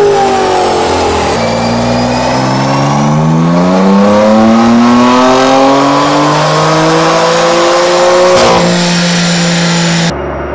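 A BMW E92 M3's naturally aspirated V8 winding down with a falling note. Then a BMW F80 M3's twin-turbo straight-six on a chassis dyno makes a full-throttle pull, its note climbing steadily for about seven seconds. It breaks off with a sudden sharp sound as the throttle closes, and the engine settles to a steady lower note.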